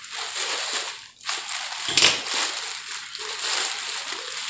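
Thin plastic parcel bag crinkling and rustling as it is cut and torn open by hand, with one louder sharp crackle about two seconds in.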